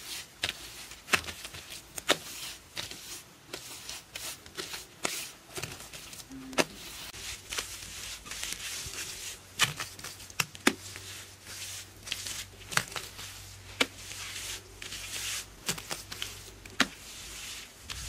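Bare hands slapping and smoothing wet mud plaster: irregular sharp slaps among steady wet smearing and scraping.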